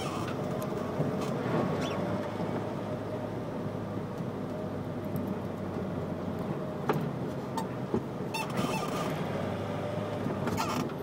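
City road traffic heard from a car: engines running and tyres on the road, with a faint drawn-out whine through most of it and a few sharp clicks in the second half.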